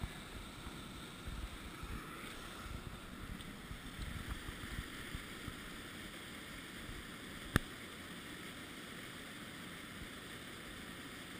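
Wind buffeting the microphone over the steady rush of a shallow river, with one sharp click about seven and a half seconds in.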